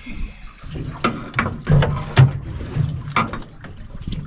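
Water slapping and sloshing against the hull of an anchored small boat, with irregular knocks and splashes, the strongest about halfway through.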